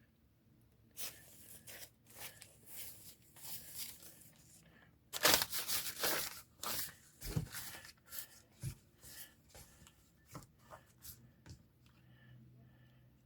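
Newspaper being torn by hand into strips: a series of short paper rips, loudest and longest about five to six seconds in.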